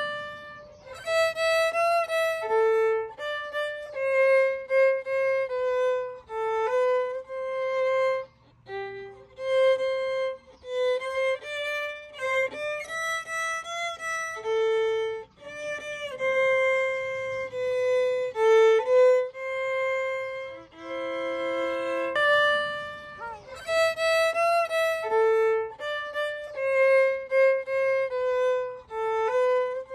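Solo violin playing a slow, lyrical melody, mostly held notes moving stepwise in phrases, with a short break in the tune about nine seconds in.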